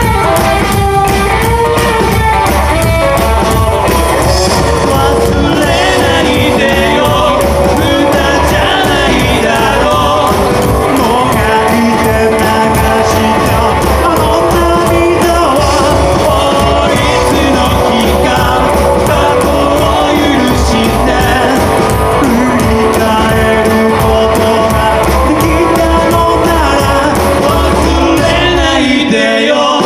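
Rockabilly band playing live: sung vocals over guitar and drums with a steady driving beat. The bass and drums drop out briefly near the end.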